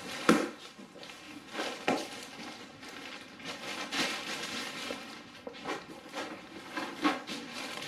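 Plastic bag crinkling and rustling as a heavy amplifier wrapped in it is shifted and tilted on foam packing, with a few knocks, the loudest about a third of a second in.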